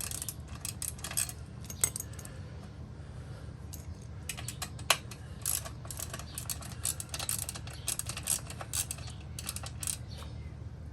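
Hand wrench and metal parts clicking and clinking irregularly against a recumbent tandem trike's frame as a bolt and nut are worked loose, over a steady low hum.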